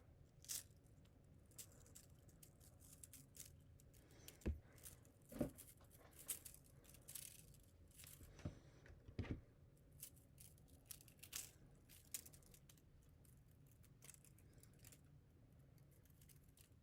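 Faint scattered clicks and rustles of a coil of 3D-printer filament being handled, stiff plastic strands ticking and rubbing against each other. A few sharper clicks stand out in the middle, and the handling thins out toward the end.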